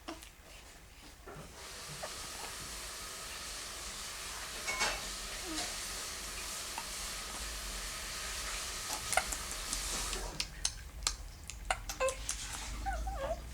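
A steady hiss that starts about two seconds in and stops about eight seconds later, followed by scattered small clicks and a few short squeaks.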